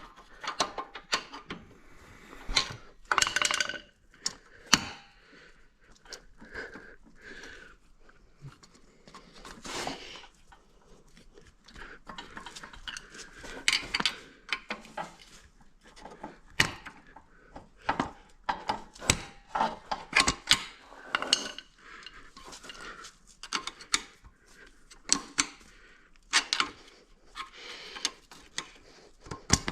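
Metal hand tools clinking, tapping and scraping against metal parts in irregular sharp knocks, as a stuck part is punched through and pried free.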